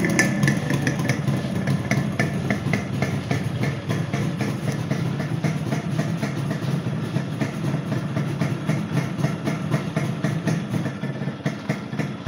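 Yamaha two-stroke motorcycle engine idling steadily on a cold start, a quick even run of exhaust beats.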